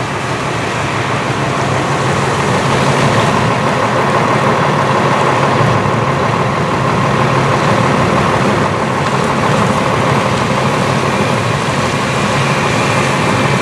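Fire engine's diesel engine and fire pump running steadily under load as a second 3-inch supply hose is charged, growing a little louder over the first few seconds.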